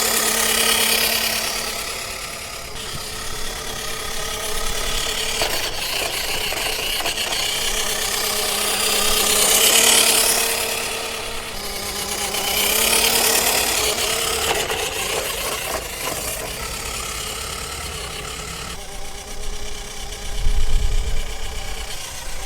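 WPL C34 RC truck driving over rough ground: the small electric motor and gears whining, with tyre and body noise over the surface. It grows louder about ten seconds in, swells again a few seconds later, then eases off.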